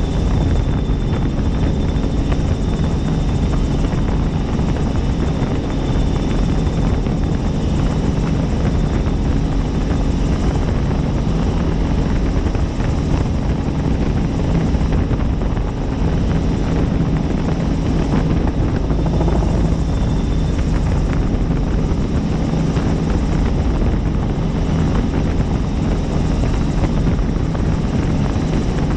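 Helicopter in flight: a steady drone of rotor and engine, with a faint high whine that comes and goes.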